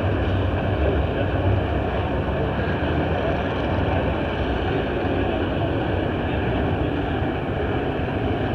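Steady low rumble of vehicles running in a demolition-derby pit area, an even din with no distinct events.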